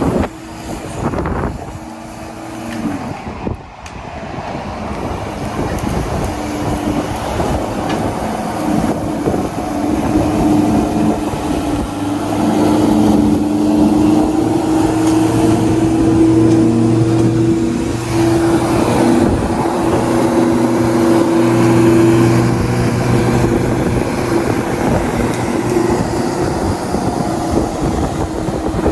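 Certified 17-inch 12-amp corded electric lawnmower running, with a steady motor hum and whine over the whir of the blade. It swells over the first few seconds, then holds steady.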